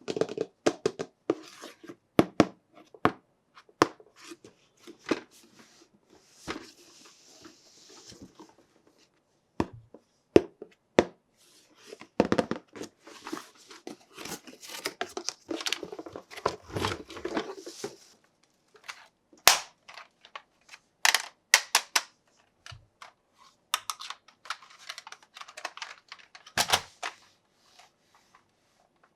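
Toy packaging being opened and handled: tearing and crinkling of packaging, mixed with many sharp clicks and knocks of hard plastic parts, with a dense spell of crinkling in the middle.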